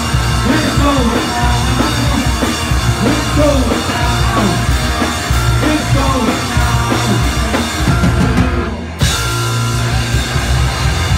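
Rock 'n' roll band playing loud and live: electric guitar, bass guitar and drum kit. About eight and a half seconds in the band drops out for a moment, then comes straight back in.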